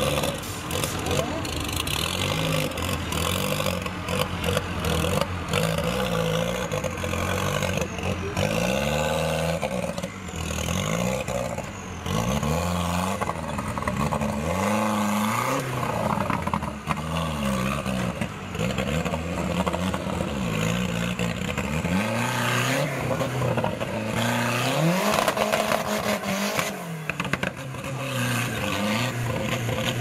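Engine of a modified off-road 4x4 competition vehicle being revved in short repeated bursts while crawling over rock, its pitch rising and falling every second or two after running more steadily for the first several seconds.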